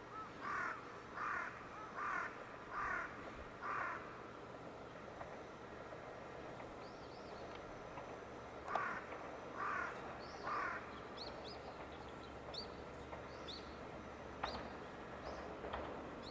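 A crow cawing: five caws in a row about three-quarters of a second apart, then three more a few seconds later, with a few brief high chirps from small birds in the second half. Under them a faint low rumble from the approaching diesel railcar, growing near the end.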